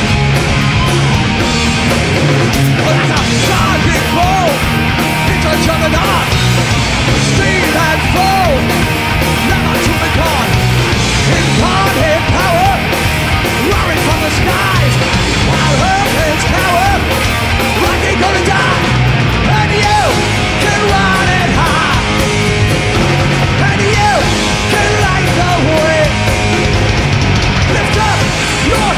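Loud, heavy punk-style rock music.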